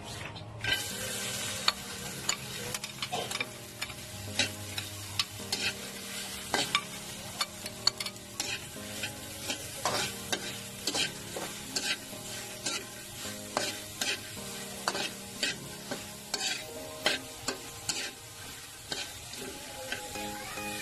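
Sliced okra frying in hot oil in a metal wok: a steady sizzle that starts about a second in as the okra goes into the pan. A metal spatula knocks and scrapes against the wok about once or twice a second as the okra is stirred.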